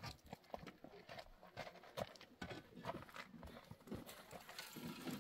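Hollow concrete blocks knocking and clunking as they are handled and laid on a block wall: a run of irregular knocks.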